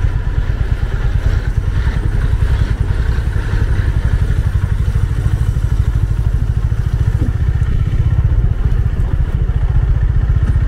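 Motorcycle engine running steadily at low speed, heard from on the bike, with a fast even pulse of its firing strokes.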